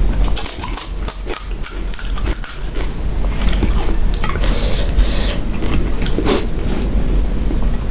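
Close-up eating sounds of pani puri: crisp puri shells crackling and crunching between the teeth for the first few seconds, then softer, wetter chewing.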